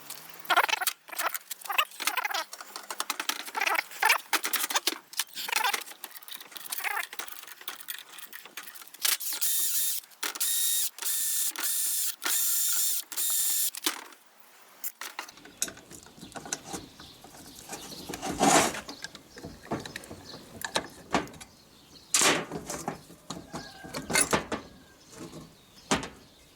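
Metal tools and engine parts clinking and knocking as an outboard motor's powerhead is taken apart by hand, with a few seconds of steady whirring in short runs partway through.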